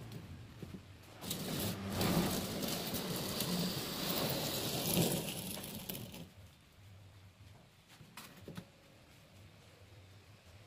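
Wooden profile template scraped along wet sand-cement mortar in a steel channel form, cutting the ridged profile of a concrete fascia board. A rough continuous scrape that starts about a second in, lasts about five seconds and then stops, followed by a few faint knocks.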